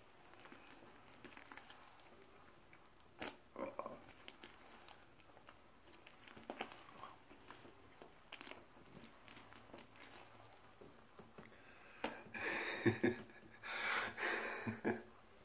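Faint wet smacking and crinkling of pie cream on a face and clothing, with scattered small clicks. About twelve and fourteen seconds in, two louder breathy bursts of laughter.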